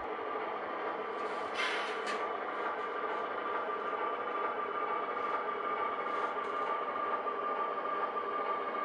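HO scale model diesel locomotive's sound decoder playing steady diesel engine running sound through its small onboard speaker, with a short hiss about a second and a half in.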